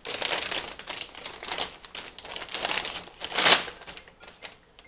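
A paper fast-food takeout bag crinkling and rustling as it is folded and handled, in uneven crackles that are loudest about three and a half seconds in.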